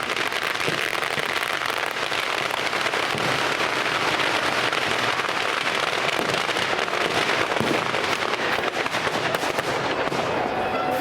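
Large bonfire of wooden shipping pallets and an old boat burning, with dense, continuous crackling and popping at a steady level.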